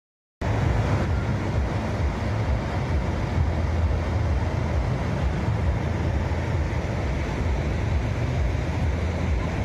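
Waterfall rushing: a steady, unbroken roar of falling water, heavy in low rumble, cutting in just after the start.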